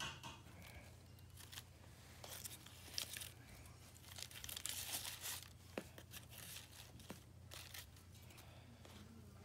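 Faint rustling and crinkling of shiny plastic ribbon and cardboard as hands thread and tie the ribbon strings, loudest around the middle, with a few light clicks.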